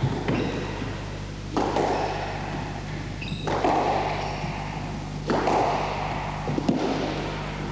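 Squash ball smacking off rackets and the court walls, sharp hits a second or two apart, each echoing in the enclosed court, over a steady low hum.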